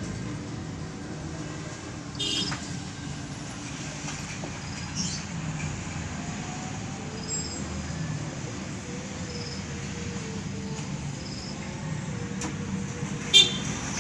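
Lovebird giving a few short, sharp chirps: one about two seconds in, another around five seconds, and the loudest near the end. A steady low background noise runs under them.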